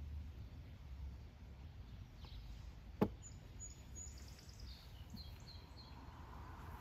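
Outdoor ambience with a steady low rumble. A single sharp knock about three seconds in, then a bird chirping a quick run of short high notes.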